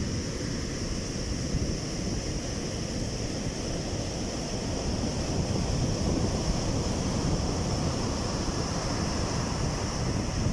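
Strong wind buffeting the microphone over the steady wash of sea surf, with a steady high hiss.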